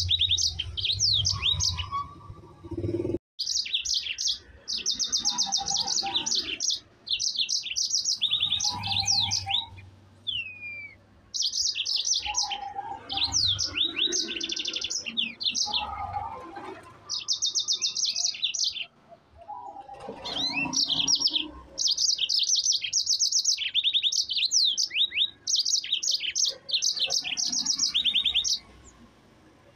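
Yellow-fronted canary (Mozambique canary) singing in long bursts of rapid trills and rolling notes, phrase after phrase with short pauses, and falling silent near the end.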